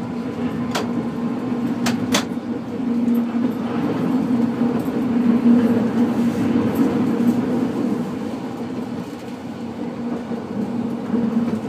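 Kumamoto City Tram 8800-series streetcar running along its track, heard from inside the car: a steady running hum that swells a little midway, with a few sharp clicks about one and two seconds in.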